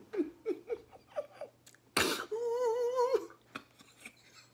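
A man's muffled giggling through a hand held over his mouth, short bursts falling in pitch about four a second. About two seconds in comes a sudden loud burst of breath, then a long wavering moan of delight over food.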